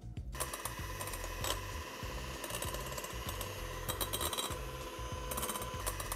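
KitchenAid electric hand mixer switching on about a third of a second in and running steadily, its motor giving a constant whine as the beaters whip a thin egg-white-protein batter in a glass bowl toward soft peaks.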